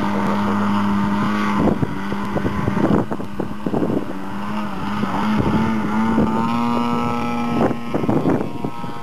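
Engine of an aerobatic radio-controlled model plane running at a steady high drone while the plane hangs nose-up on its propeller, the pitch shifting a little and rising briefly as it flies off, with wind buffeting the microphone.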